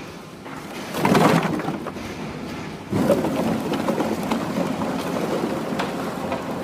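PET plastic bottles crunching and crackling as a horizontal baler compresses them: a loud burst about a second in, then a sudden crackling surge near three seconds that keeps going.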